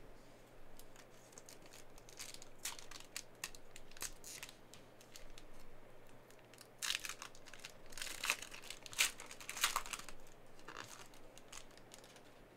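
Plastic wrapper of a Panini Mosaic basketball card pack being torn open and crinkled, a run of sharp crackles that is loudest about seven to ten seconds in.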